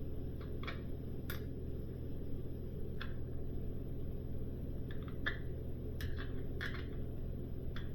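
Scattered light clicks and taps of small brass fittings being handled and threaded into an inline water filter, over a steady low hum.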